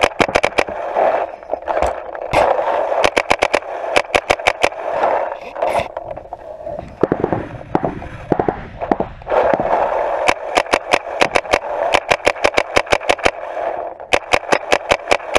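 Paintball marker firing in rapid strings of sharp pops, several shots a second. There is a sparser lull about halfway through, then fast strings again toward the end.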